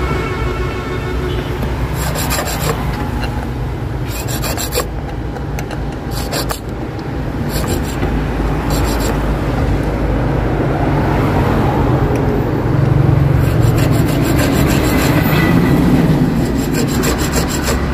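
Small metal hand file rasping on a motorcycle key blank as a new key is cut by hand. The filing comes in short spells of quick strokes.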